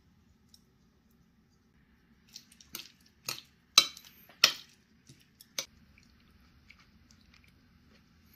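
Mealtime table sounds: about seven sharp clicks and wet smacks over roughly three seconds, the two loudest near the middle, over a faint steady hum.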